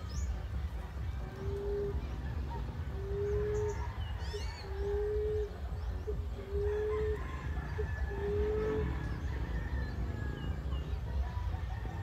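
Emerald dove cooing: five low, soft coos about a second and a half apart, each led by a short quiet note. A higher chirping call from another bird comes about four seconds in, over a steady low rumble.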